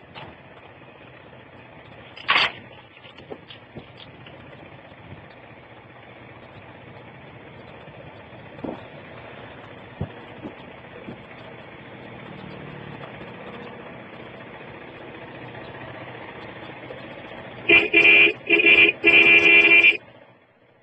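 Steady wind and road noise of a vehicle riding down a ghat road, picked up by a phone microphone, with a brief sharp noise about two seconds in. Near the end a vehicle horn honks four times in quick succession, the last blast the longest.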